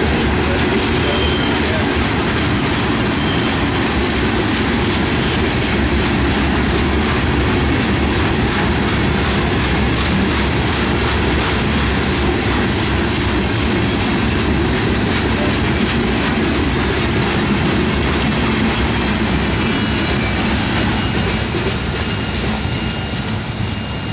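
Loaded Herzog ballast hopper cars rolling past: a steady rumble and clickety-clack of steel wheels over the rail. It eases off over the last few seconds as the final cars pull away.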